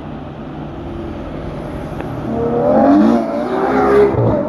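Supercar engine accelerating hard. The revs climb steeply from about two seconds in, dip once, then climb again, loudest near the end.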